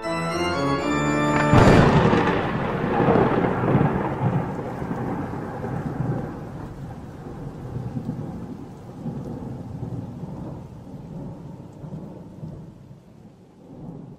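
Thunderclap sound effect: a sudden crack about a second and a half in, then a long rolling rumble that slowly dies away. A short run of low musical notes comes just before it.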